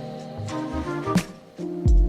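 Background music with a steady beat: deep bass notes, sustained melodic notes and regular percussive hits.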